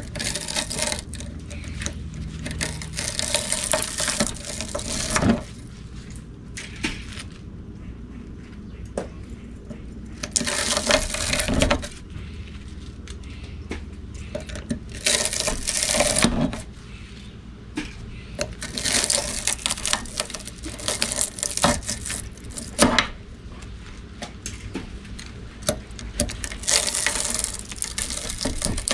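Copper motor windings being gripped with pliers and torn out of a steel stator clamped in a vise: spells of scraping and rasping wire-on-metal noise a few seconds long, with clicks and clinks from the pliers in between.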